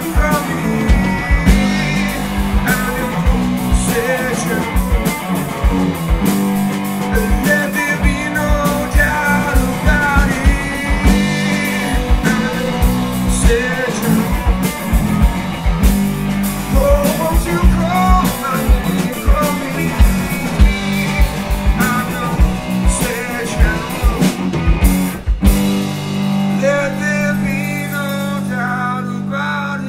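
Live rock band: a man singing over electric guitar and drums. Near the end the drums drop out, leaving held guitar chords under the voice.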